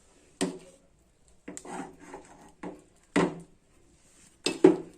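Utensils knocking and scraping against a cooking pot and vessel as cooked jowar mudde is scooped out: a series of about six sharp knocks with scraping between, the loudest just past the middle and near the end.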